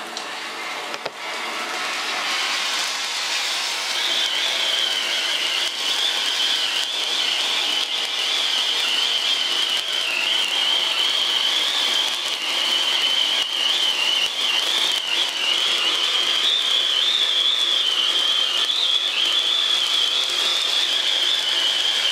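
SRK cold pyro (indoor spark fountain) burning: a steady spraying hiss that builds over the first few seconds, with a high whistle-like tone setting in about four seconds in and wavering slightly.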